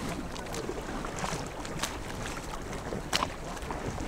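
Choppy sea water sloshing around stand-up paddleboards, with wind buffeting the microphone. A few sharp slaps of water break through, the loudest about three seconds in.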